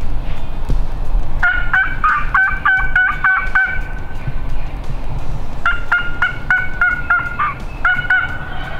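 Turkey calling: two runs of short, evenly repeated yelping notes, about four a second, each run lasting about two seconds with a pause between.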